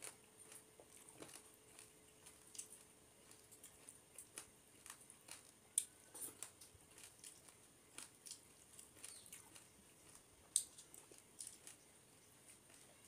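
Faint close-miked eating by hand: fingers mixing rice and curry on a metal plate and mouth sounds of eating, a stream of soft clicks and smacks with two sharper clicks about six and ten and a half seconds in.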